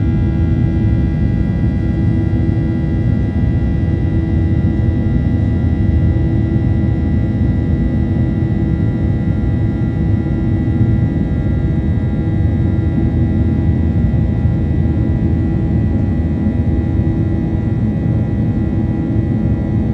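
Airliner's jet engines running steadily at high power: a loud, even low rumble with a steady high whine over it.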